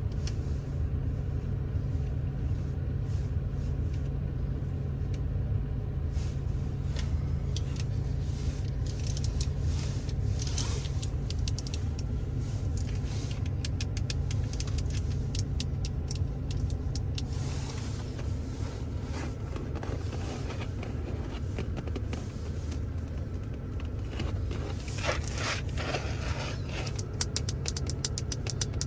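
Fingers tapping and scratching on the interior surfaces of a Ford Focus in a run of quick, uneven clicks, heaviest in a few clusters, over a steady low hum in the cabin.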